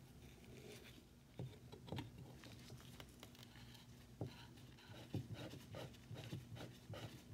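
Faint, irregular clicks and scrapes of a screwdriver working the long screw out of a hand plane's rear handle, along with light handling taps of the metal parts.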